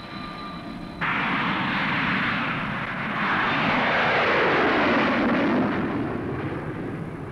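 Harrier jump jet's Rolls-Royce Pegasus vectored-thrust turbofan. A steady whine runs for about a second, then a loud jet roar comes in suddenly as the Harrier lifts off. The roar swells, sweeps down in pitch and fades toward the end.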